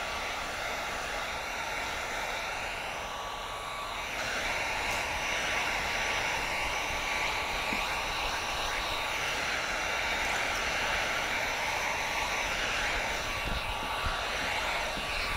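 Handheld electric heat gun running steadily, a rushing blower hiss with a faint steady whine from its fan motor, a little louder from about four seconds in and cutting off at the end. It is blowing hot air onto window tint film to shrink it to a car's curved rear glass.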